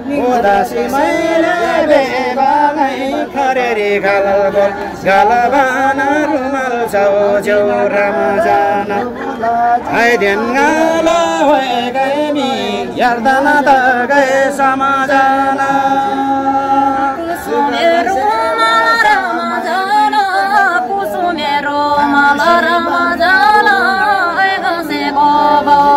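Singing: a melody carried in long held notes that waver and slide between pitches, with little instrumental backing.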